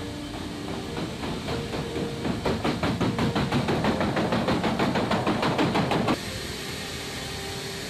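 A helicopter being pushed along the cargo floor of a C-17 hold, over a steady hiss. From about two seconds in, a fast, even mechanical rattle of clicks runs for about four seconds and cuts off suddenly.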